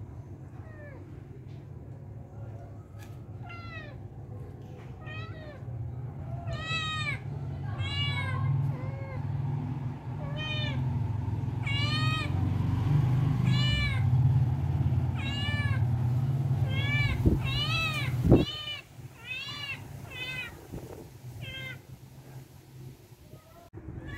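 Newborn kitten mewing over and over in short, high cries, about one a second, over a steady low rumble. Two sharp knocks come about three-quarters of the way through.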